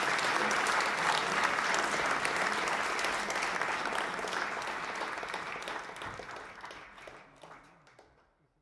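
Audience applauding: dense, steady clapping that fades out over the last three seconds or so.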